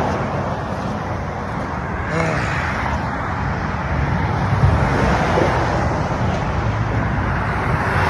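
Highway traffic going past at speed, a steady roar of tyres and engines.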